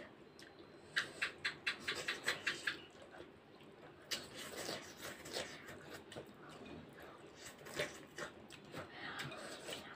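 Eating sounds from two people eating instant noodles with forks from plates: short clicks and smacks of chewing and fork on plate. There is a quick run of about five clicks a second for about two seconds, then fainter, scattered eating sounds.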